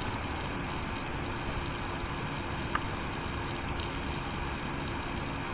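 Steady background hiss with a low hum, and a single faint click nearly three seconds in.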